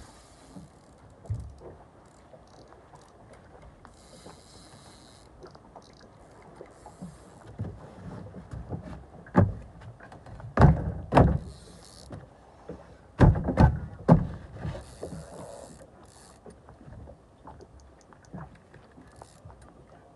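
A run of heavy, low thumps and knocks, loudest in two clusters past the middle, with bursts of insect chirring coming and going behind them.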